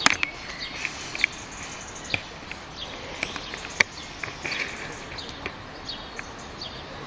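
Birds chirping and calling with many short, scattered high notes over outdoor background hiss, broken by a few sharp clicks, one right at the start and another about four seconds in.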